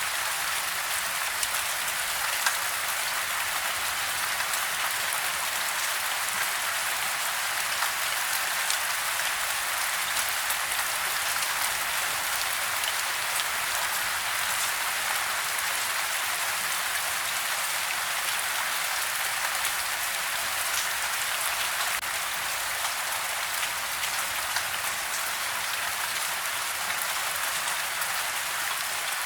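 Steady rain falling, an even hiss dotted with many small ticks of individual drops striking a surface.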